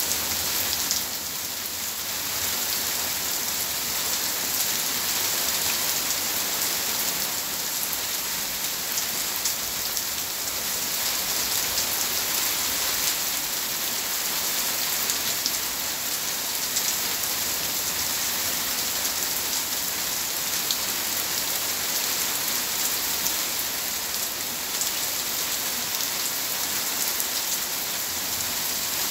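Heavy rain pouring onto a paved yard and garden plants, a steady dense hiss of drops splashing on standing water.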